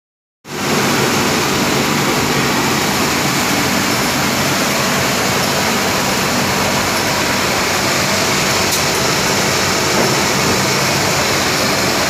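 Industrial component washing machine running: a steady loud rush of flowing wash water and pump noise with a low hum underneath, starting about half a second in.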